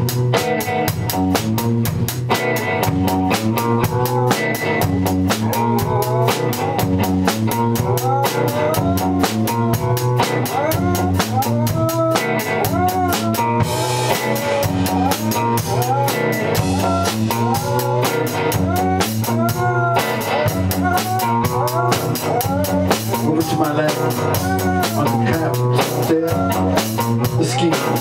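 Basset-terrier mix dog howling along to a live rock band, in long sliding, rising and falling howls that join in several seconds in. The band plays throughout with a drum kit keeping a steady beat.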